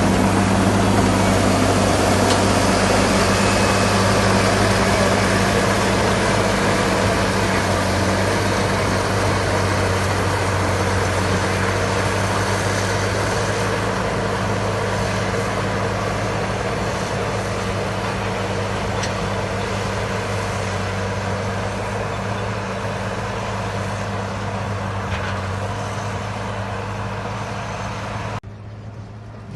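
Caterpillar 140M motor grader's diesel engine running with a steady low hum, slowly growing quieter, then dropping suddenly in level about a second before the end.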